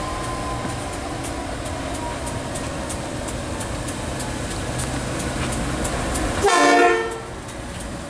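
Pacific National NR-class diesel-electric locomotives running steadily as they approach hauling a passenger train, growing louder, then one short horn blast, under a second long, about six and a half seconds in.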